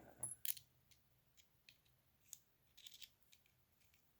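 Faint, scattered clicks and light metallic taps from small soldering-iron tips being handled and checked, with near silence between them.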